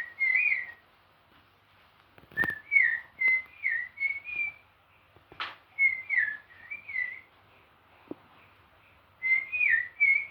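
A person whistling in imitation of birdsong: short, chirpy rising-and-falling notes in phrases of two to five, with pauses between the phrases. Two brief swishes of a broom come through about two and five seconds in.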